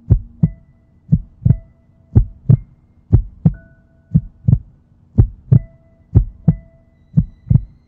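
Heartbeat sound effect: paired low thumps, lub-dub, repeating about once a second over a faint steady hum.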